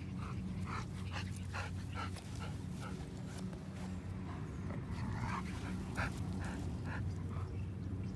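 Dog panting in short, irregular puffs, over a steady low hum.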